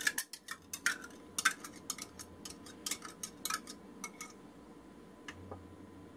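Metal wire whisk clicking and tapping against the sides of a bowl while mixing a thin soy and hoisin sauce: a run of quick, irregular light clicks that thin out after about four seconds.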